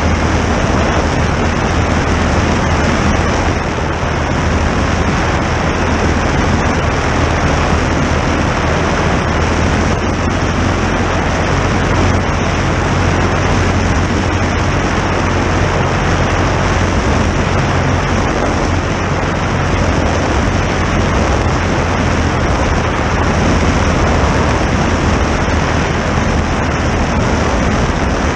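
Legal Eagle ultralight's two-cylinder opposed engine and propeller running steadily in flight, a constant low drone under a rush of air.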